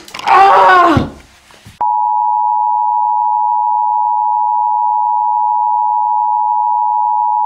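A loud human voice cries out for about a second, then a steady, unchanging single-pitched test tone cuts in abruptly and holds: the TV test-card signal tone.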